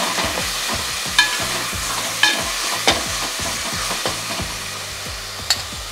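Onion-tomato masala sizzling in hot oil in a metal pan as a metal spatula stirs and scrapes through it, with a few sharp clicks of the spatula against the pan. This is the sauté stage, cooking the onions and tomatoes down into a soft base.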